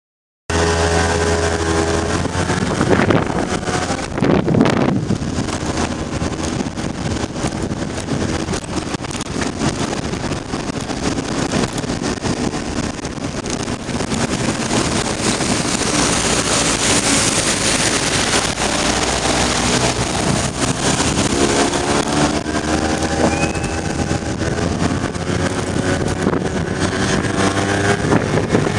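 Piaggio Hexagon scooter engine running on the move, its pitch falling as it slows and climbing again as it speeds up, over a steady rush of wind and road noise.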